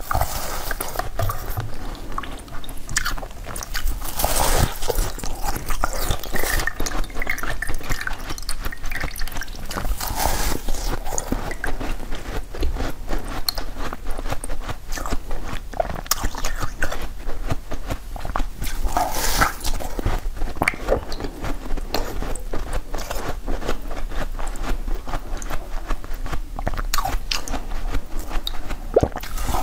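Close-miked mouth sounds of eating a frozen jelly log: wet sucking and slurping with crackles and small bites on the icy jelly, going on steadily without a break.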